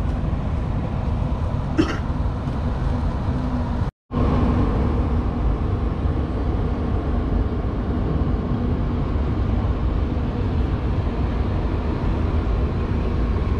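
Wind buffeting the microphone, a loud uneven low rumble over a faint steady hum. The sound drops out completely for a moment about four seconds in.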